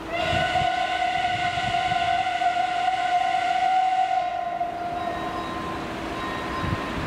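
Steam whistle of the approaching steam locomotive 555.3008: one long blast on a single steady pitch, starting abruptly and fading out after about five seconds.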